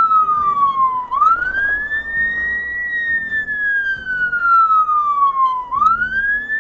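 Fire engine's electronic siren wailing. The tone glides slowly down over about four and a half seconds, then sweeps quickly back up, twice, over a low vehicle rumble.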